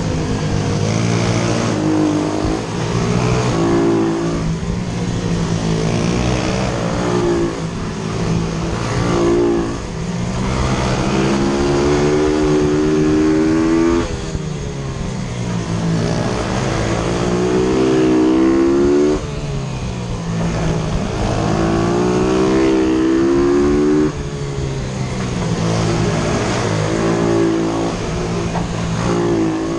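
YCF F125 pit bike engines, 125 cc four-stroke singles, racing close up. They rev higher and higher on the short straights, then drop sharply as the throttle closes for the corners, several times over.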